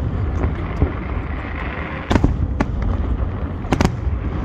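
Aerial fireworks shells bursting in a series of sharp bangs over a steady low rumble, the loudest around two seconds in and a close pair near the end.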